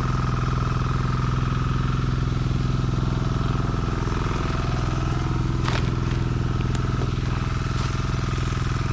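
A small engine running steadily at an even pitch, with a couple of light clicks a little past halfway.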